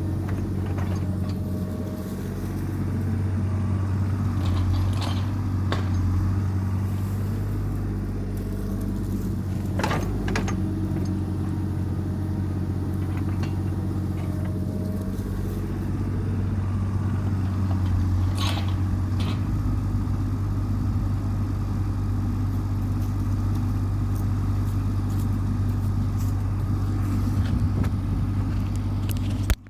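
Diesel engine of heavy land-clearing equipment running steadily under work, with a few sharp knocks and clanks, the clearest about ten and eighteen seconds in. The sound stops abruptly near the end.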